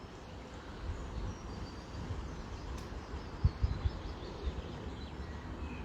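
Outdoor ambience: a low, fluctuating wind rumble on the microphone, with a few soft thumps about three and a half seconds in and faint bird chirps.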